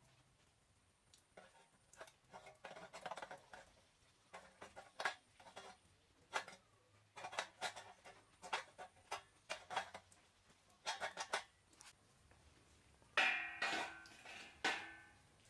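Scattered light clicks and taps of small steel parts being handled and set on a steel box, then near the end two louder metal clangs that ring on briefly.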